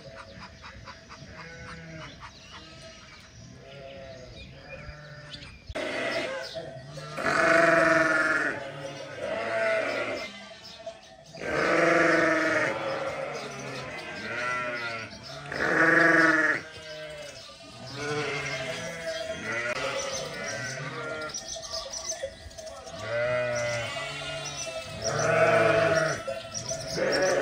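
A flock of sheep bleating: many wavering bleats, often several at once, quieter at first and then loud from about six seconds in.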